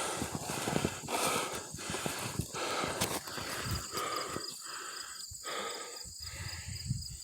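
A man's heavy breathing while hiking, with footsteps rustling through brush and a steady high insect drone underneath.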